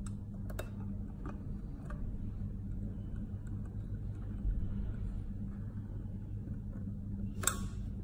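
Light clicks of a small screwdriver and wire ends being worked into a screw terminal block, a few in the first two seconds and a sharper click near the end, over a steady low hum.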